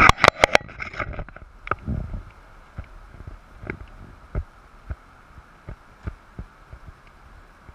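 Clatter and knocks on the camera at the start, then dull low thumps about one or two a second against a steady faint city hum.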